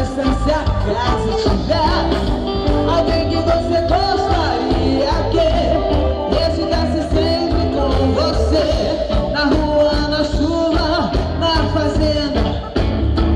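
A live soul band playing loudly through a PA: drums, electric bass, guitars, keyboards and trombone, with a woman singing lead over them.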